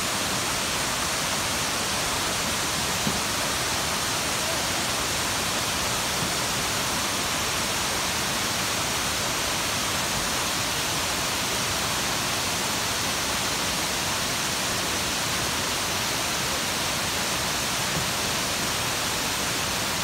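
Kuang Si waterfall rushing: a steady, unbroken sound of falling water.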